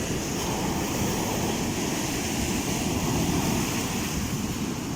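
Rough sea surf breaking and washing on the beach, a steady rushing roar of waves.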